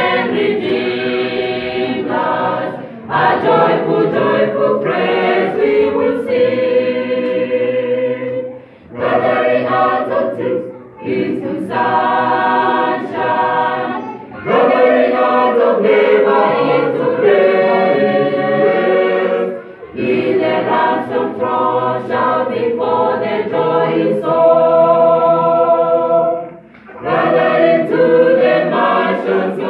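Mixed choir of men and women singing a hymn a cappella in parts, with short breaks between phrases.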